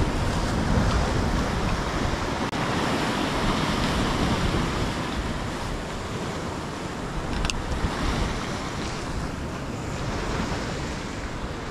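Rough North Sea surf breaking on a rocky shore, with wind buffeting the microphone. A single sharp click comes a little past halfway.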